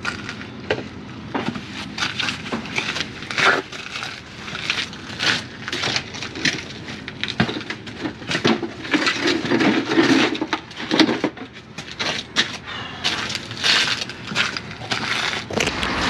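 Steel trowel scraping and packing sand-and-cement mortar into the awkward top joint of a brick wall under steel cladding: an irregular run of short scrapes and clicks. A denser stretch of rough scraping comes about halfway through.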